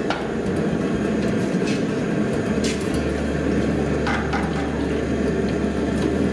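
A forge burner running with a steady rushing noise and low hum, while blacksmith's tongs are dipped and stirred in a bucket of water to cool them, with light splashing and a few metal clinks.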